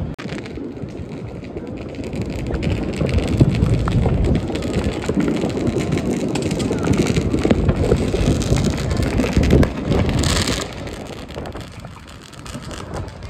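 Wind rumbling on a phone microphone in a New Year's Eve crowd, with voices and many small crackles and pops of fireworks throughout; a short hissing burst about ten seconds in.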